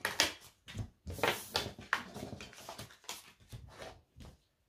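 Oracle cards being gathered up off a tabletop and stacked by hand: a quick irregular run of slides, slaps and taps of card on card and card on table. It stops about four seconds in.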